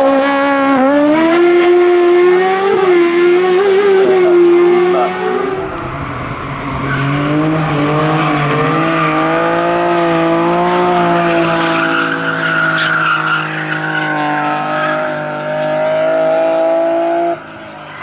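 Race car engines at high revs, rising and falling with the throttle: first a small sports prototype racer accelerating through a bend, then after about five and a half seconds a BMW E30 3 Series sliding sideways through a hairpin under power, with some tyre squeal. The sound cuts down abruptly about a second before the end.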